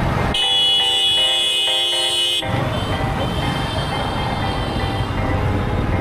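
A brief stretch of electronic intro music cuts off abruptly about two seconds in, giving way to motorcycle riding noise in city traffic: a steady rumble of engine and road, with faint horns sounding in the traffic.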